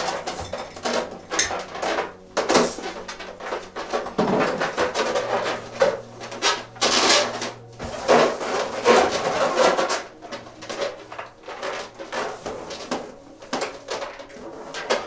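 Inflated latex balloons being handled and tied off: an irregular run of rubbing, squeaks and knocks of rubber against hands and a cloth-covered tabletop.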